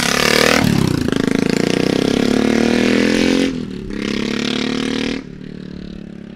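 Custom BSA Scrambler 650's big single-cylinder engine, running through a loud straight-through exhaust, pulling hard under throttle. There is a short dip about three and a half seconds in, then it backs off and runs quieter from a little after five seconds.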